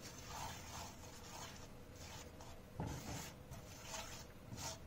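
Spoon stirring and scraping spice powders mixed with a little water into a paste in a pan, in repeated short strokes, with a low knock against the pan near the middle.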